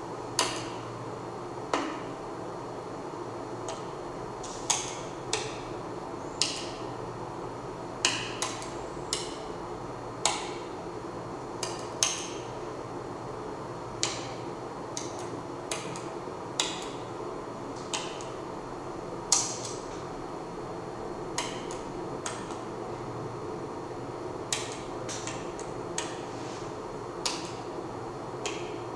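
A series of sharp knocks or clicks at an uneven pace, roughly one every second, some ringing briefly, over a steady low hum.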